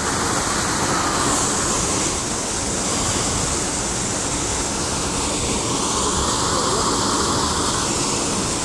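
Steady, loud rushing noise spread evenly from deep rumble to high hiss, with no distinct events.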